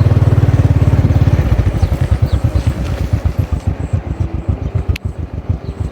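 A motorcycle's small engine running close by with a fast, even putter. It is loudest at first, and its beat opens out into more distinct pulses after about two seconds. There is a single sharp click near the end.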